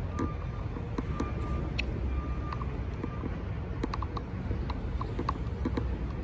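Outdoor traffic ambience: a steady low rumble of road traffic, with a few light clicks scattered through it and a faint steady tone in the first half.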